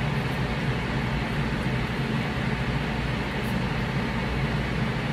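Steady room noise: a low hum under an even hiss, with no distinct knocks or clicks.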